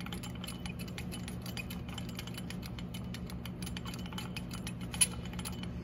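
Brake lathe's manual feed handwheel being cranked by hand, its gearing giving a rapid run of small mechanical clicks, with one sharper click about five seconds in. A steady low hum lies underneath.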